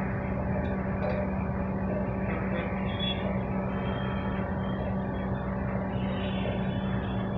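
Steady mechanical hum with a constant low drone, over a background of outdoor urban noise.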